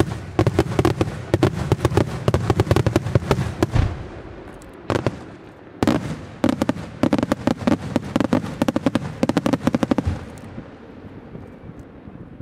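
Aerial fireworks bursting in rapid volleys of many sharp bangs: one dense run of reports, a short lull with a couple of single bangs, then a second dense run that dies away near the end.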